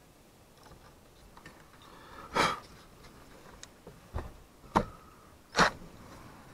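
Hitachi 18-volt cordless driver running in two short bursts, with a few sharp clicks between them, as a screw is taken out of the blower's metal mounting bracket.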